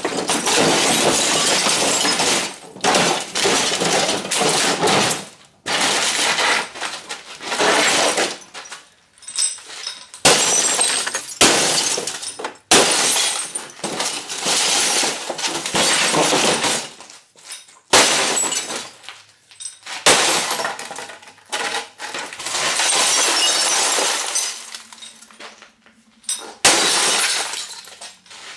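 Glass of a CRT television's picture tube being smashed: repeated blows, each setting off a burst of shattering glass about a second or more long, with short pauses between.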